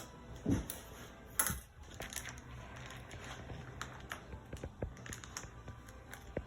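Toy packaging being cut open with scissors and handled: scattered small clicks and rustles, with two sharper snaps about half a second and a second and a half in.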